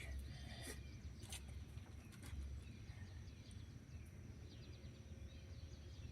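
Quiet outdoor background: a steady low rumble, a few light clicks in the first second or so, and faint bird chirps.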